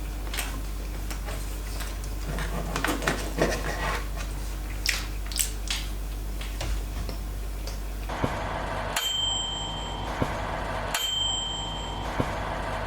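A bright bell-like ding struck about every two seconds, three times, starting about nine seconds in, each one ringing on with a clear high tone. Before it there are only scattered small clicks and rustles.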